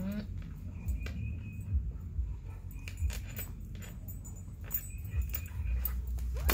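Husky puppy chewing and gnawing a rubber flip-flop, with irregular clicks and knocks as the sandal is mouthed and tossed on the tile floor. The metal clip on its harness jingles.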